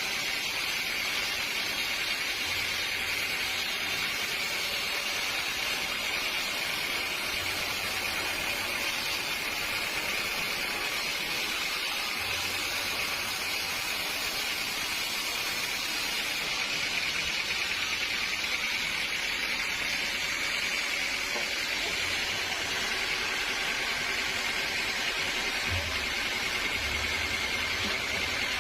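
Sawmill saw running steadily: a continuous even noise with a high whine that holds the same level throughout.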